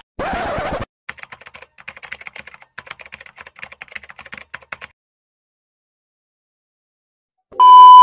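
Edited-in intro sound effects: a short whoosh, then about four seconds of rapid typing clicks like a keyboard or typewriter, a pause, and a loud steady beep near the end.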